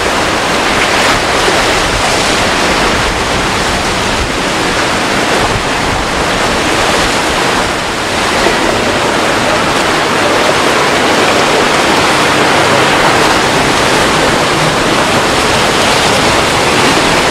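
Steady loud rush of rough surf and breaking waves.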